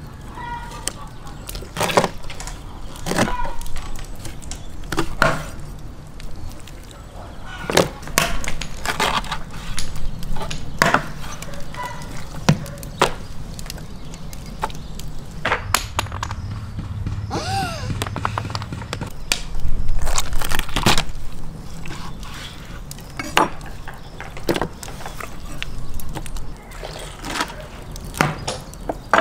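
Large kitchen knife cutting up raw whole chickens on a wooden cutting board: irregular sharp chops and cracks as the blade goes through and strikes the board.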